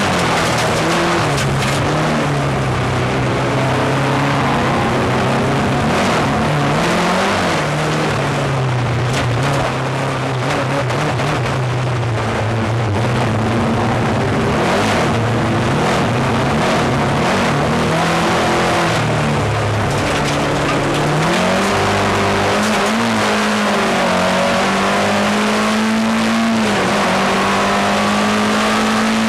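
Ford Escort race car's engine heard from inside the cabin, running hard under load, its pitch rising and dropping again and again through gear changes and throttle lifts, over steady tyre and road noise from the loose track.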